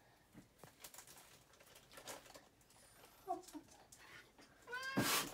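Domestic cat giving a short soft call, then a rising meow about four and a half seconds in, over faint rustling; a louder noisy rustle comes right at the end.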